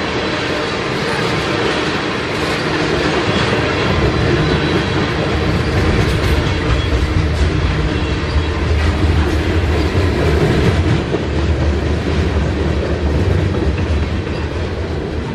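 Freight cars of a passing train, tank cars then covered hoppers, rolling by at close range: a steady, loud rumble of steel wheels on the rails with clattering over the rail joints.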